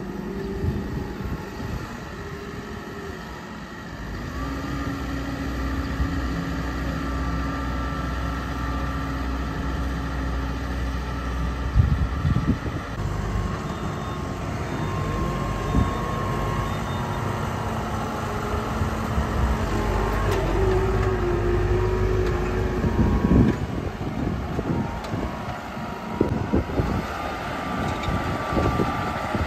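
Yanmar YT5113A tractor's diesel engine running steadily under load while driving a Niplo Grand Rotary SKL2600 rotary tiller through the soil. The engine note shifts in level and pitch a few times, and there are two sharp knocks, about 12 seconds in and again near 23 seconds.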